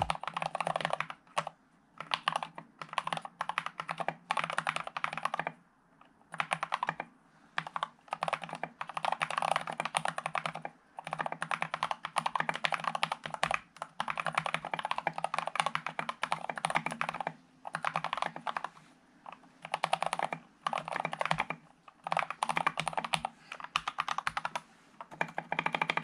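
Fast typing on a custom mechanical keyboard with lubed Gateron Black linear switches, PBT SA-profile keycaps and an aluminium plate: quick runs of key clacks broken by short pauses every few seconds.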